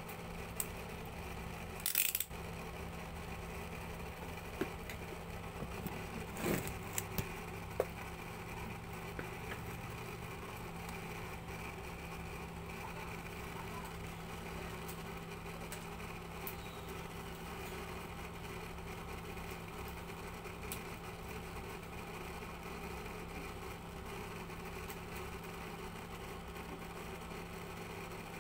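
Steady mechanical hum, with a few sharp clicks and knocks in the first eight seconds or so.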